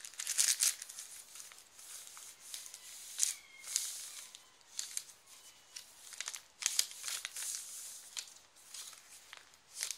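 Paper pages, tags and cards of a handmade journal being handled and turned: an irregular string of short, dry rustles and crinkles, loudest about half a second in and again around the middle.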